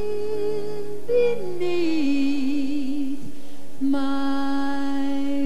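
A woman singing a slow ballad live into a microphone with instrumental backing: her voice slides down about a second in, wavers with vibrato, then holds a long steady note near the end.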